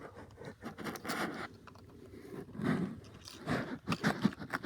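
Plastic parts of a disassembled toy train being handled, with a series of short scrapes and small clicks.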